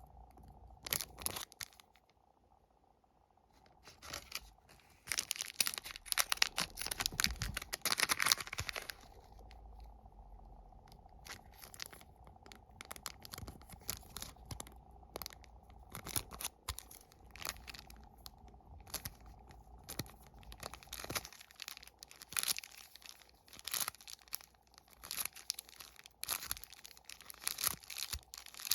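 Plastic wafer wrappers being torn open and crinkled by hand: a dense run of crackling about five seconds in, then repeated short crackles and tears.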